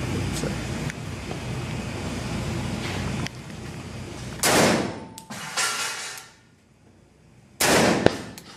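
Two shots from a Remington Versa Max Tactical 12-gauge semi-automatic shotgun, about three seconds apart, each trailing off in the indoor range's echo. The first few seconds hold a steady rush of background noise.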